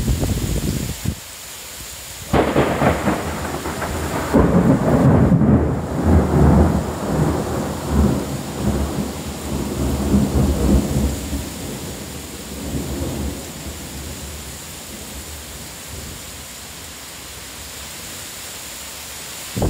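A loud clap of thunder breaks about two seconds in and rolls on as a deep, crackling rumble for about ten seconds before dying away, over the steady hiss of heavy rain.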